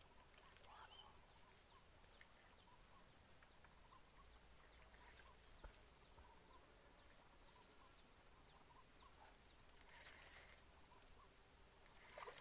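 Insects chirring steadily at a high pitch with fast pulsing, faint at this level, with scattered short faint chirps underneath and a brief rising sound near the end.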